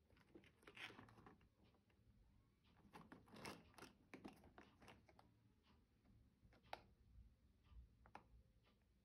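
Faint rustling and light ticks of a cardboard biscuit carton being handled and turned over in the hands, over near-silent room tone, busiest about three to four seconds in, with single sharp ticks near the end.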